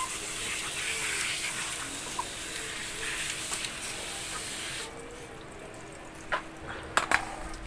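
Water spraying from a handheld garden-hose spray nozzle onto a wet dog and a plastic grate, a steady hiss that cuts off suddenly about five seconds in. A few sharp clicks follow near the end.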